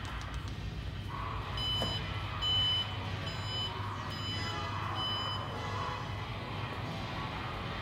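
A series of about six short, high electronic beeps, a little under a second apart, from the Alfa Romeo Stelvio's power tailgate: the warning chime that sounds as the tailgate is powered. A steady low hum runs underneath.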